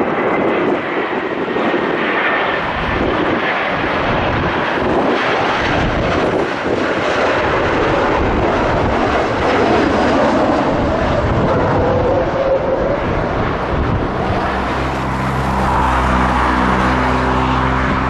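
Jet engine noise of an Embraer E190 airliner's twin turbofans on its landing approach, a steady loud roar. Near the end a steady low hum joins in beneath it.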